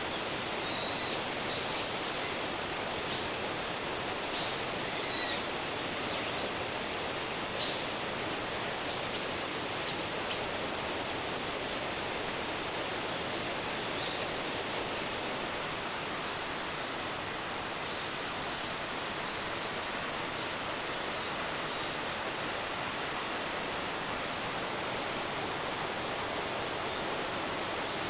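Waterfall rushing steadily, a continuous even roar of falling water, with a bird chirping briefly several times, mostly in the first ten seconds.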